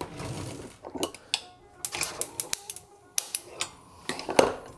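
A run of sharp, unevenly spaced clicks and light metallic knocks at a gas stove: the burner knob turned and clicking its igniter, and the metal rice pot handled on the grate, with the loudest knock near the end.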